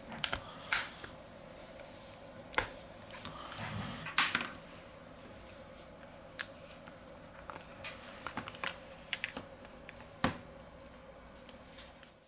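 Opening pick scraping along the edge of a Huawei P Smart 2019 as its back cover is pried loose, with irregular sharp clicks and snaps as the cover comes free. The loudest snap comes about four seconds in, during a short stretch of scraping.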